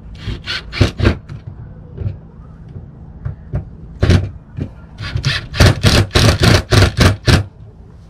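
Cordless drill running in short bursts as screws are driven into an RV compartment door to refasten the latch plate. A few bursts come early, then a quick string of about nine in the last two seconds or so.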